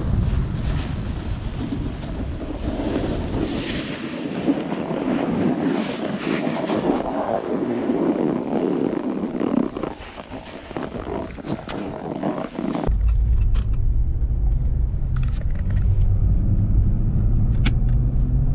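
Snowboard sliding and scraping over snow with wind on the microphone, which breaks off abruptly about two-thirds of the way through into the low, steady road hum inside a moving car, with a few faint clicks.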